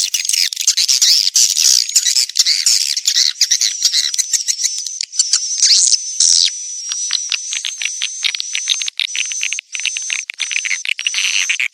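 Swiftlet courtship calls: a dense run of rapid, high twittering chirps and clicks, with a thin steady high tone running beneath from about a third of the way in.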